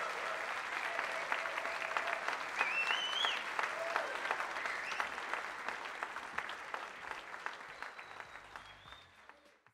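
Large audience applauding and cheering, with a high cry rising in pitch about two and a half seconds in; the applause dies away near the end.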